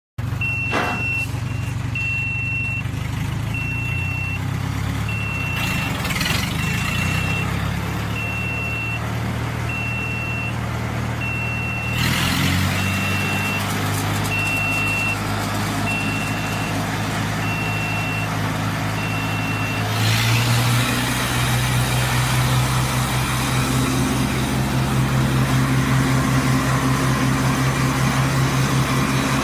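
Hydraulic wood chipper's engine running steadily while an electronic beeper sounds short beeps about once a second. About twenty seconds in the beeping stops, and the machine's running gets louder and noisier, with a deeper, busier engine note.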